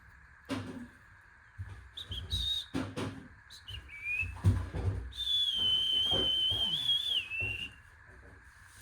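High, clear whistling: a few short notes, then one long held note that wavers slightly and dips in pitch at the end. Low thuds sound on and off underneath.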